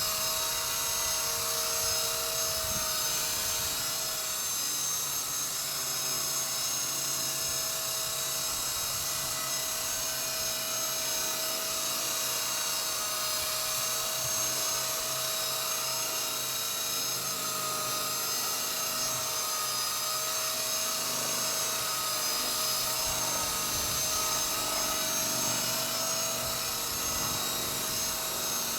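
Walkera V120D02S micro RC helicopter hovering: a steady high-pitched whine from its electric motors and rotors, the pitch wavering slightly as it holds position.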